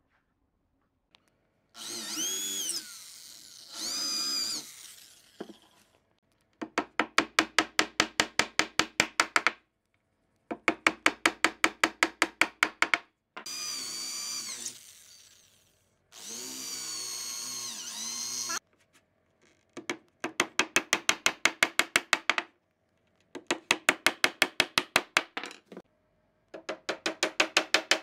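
Cordless drill boring into a wooden door frame in several short runs, its motor whine dipping in pitch as the bit bites. These alternate with bouts of rapid, evenly spaced sharp knocks, about five a second.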